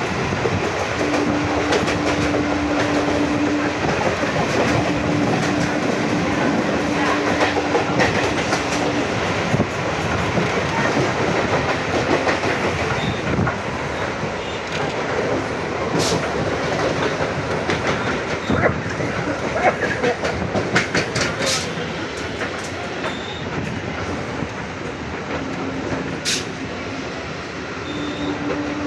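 Train running along the track with a steady, continuous rumble. A steady hum comes and goes during the first nine seconds and returns near the end, and a few brief sharp sounds occur in the second half.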